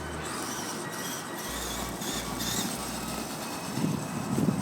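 Traxxas E-Revo electric RC truck running on pavement: a steady rumble of tyres and drivetrain, a little rougher near the end.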